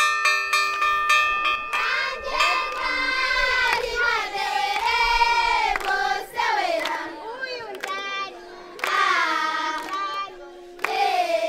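A bell rung with quick repeated strikes for about the first two seconds, then a class of young children singing together.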